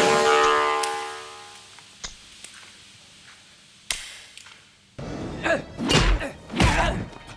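A held musical chord fades out over the first second and a half, followed by a few faint knocks. About five seconds in, a run of heavy thuds and knocks begins.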